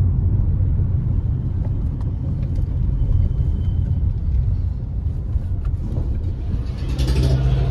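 Inside a moving car's cabin: a steady low rumble of engine and road noise.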